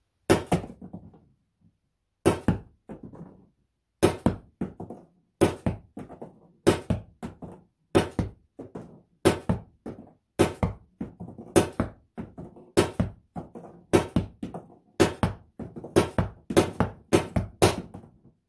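A Pepperball VKS launcher firing about eighteen shots, roughly one a second at first and quicker near the end. Each sharp crack is followed by a short rattle as the round strikes and bounces in a cardboard box target.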